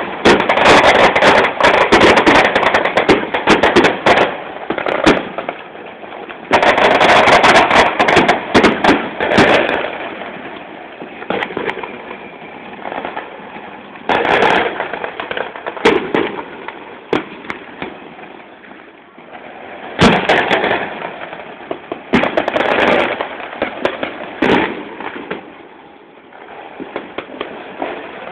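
Fireworks display going off: rapid runs of bangs and crackling for about the first ten seconds, then scattered single bangs a few seconds apart with quieter stretches between.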